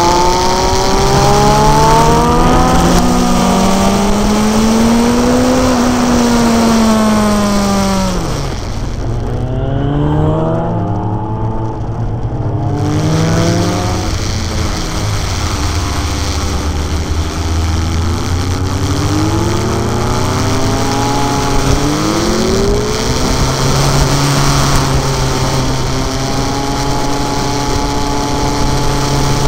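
Motorcycle engine running under way, its note climbing and falling repeatedly with throttle and gear changes, over steady wind rush. The wind hiss drops away for a few seconds near the middle, then returns.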